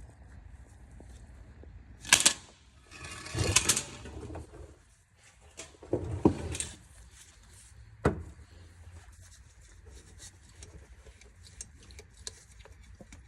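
Tools and metal parts clanking during work on a van's clutch and flywheel: a sharp clank about two seconds in, rattling clatters around three and a half and six seconds, and a single knock at about eight seconds.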